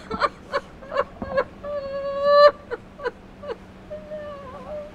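A woman crying: a string of short, catching sobs, a drawn-out wailing cry about two seconds in, then more sobs and a wavering cry near the end.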